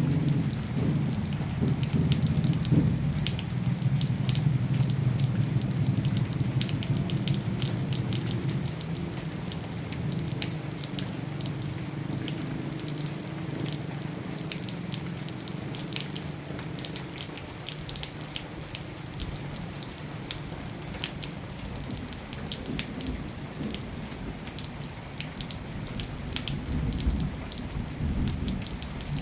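Rain falling steadily, with many individual drops striking a surface as sharp ticks over a continuous hiss. A low rumble sits under it for the first several seconds and fades out, and returns more faintly near the end.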